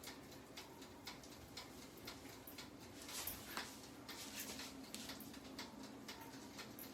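Faint, quick ticking of a toaster oven's mechanical wind-up timer counting down, several ticks a second.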